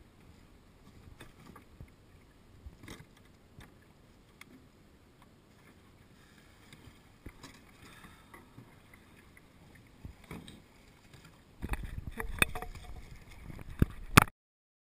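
Quiet knocks and rustles of handling on a small boat, then about three seconds of louder water splashing and sharp knocks as a hooked fish thrashes at the surface beside the hull. The sound cuts off abruptly near the end.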